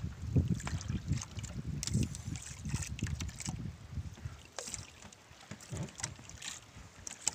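Water sloshing against the hull of a small wooden outrigger boat (bangka). The sound comes as irregular low thuds with short splashes.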